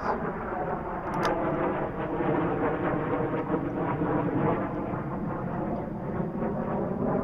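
A steady engine drone, swelling slightly and easing off, with a faint sharp click about a second in.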